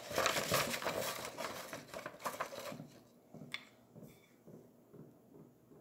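Paper rustling and crackling as a folded paper viewfinder card is handled and positioned, dying down about three seconds in to a few faint soft rustles.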